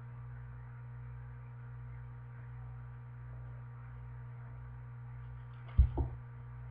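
Steady low electrical hum, with two quick dull thumps close together near the end as the picture book is put down.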